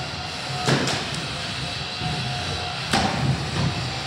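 Featherweight combat robots hitting each other: two sharp impacts about two seconds apart, over steady background noise.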